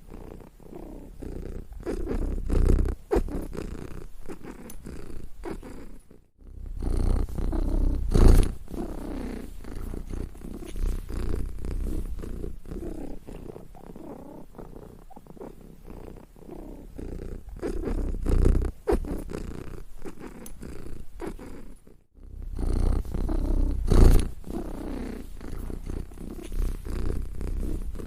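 Domestic cat purring close up, a continuous low rumble that swells and eases in slow waves. It drops out briefly twice, about six seconds in and again near the end.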